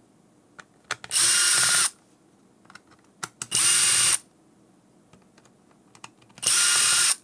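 DeWalt cordless electric screwdriver with a long Phillips bit backing out the small case screws of a GPS unit: three short bursts of steady motor whine, each under a second, with small clicks between.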